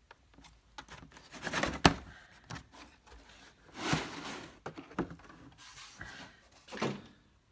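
A test lead kit handled by hand: irregular scrapes and rubs of plastic pieces and wires, with scattered clicks. The sharpest click comes about two seconds in.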